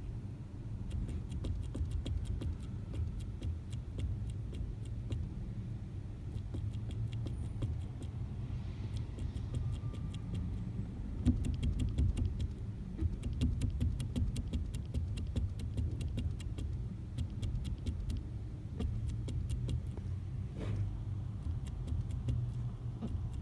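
2008 Toyota Corolla running with a steady low rumble, with many light clicks and rattles over it and a sharper knock about eleven seconds in and another about twenty seconds in: the clunk noise whose source the owner is trying to find.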